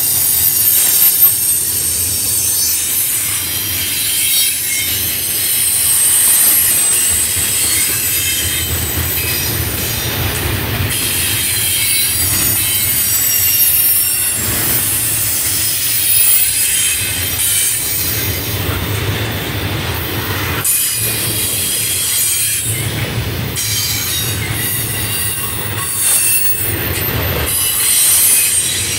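Double-stack container train's well cars rolling past, their steel wheels squealing in several thin, high tones over a steady low rumble.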